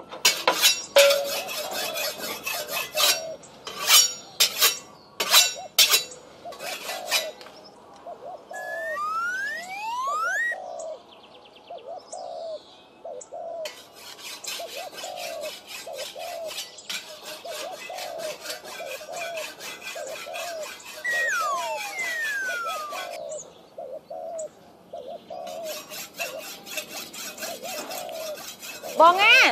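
Bird-like calls, short and repeated about once a second, with two long whistling pitch glides, one rising and one falling. A run of sharp clicks comes in the first few seconds.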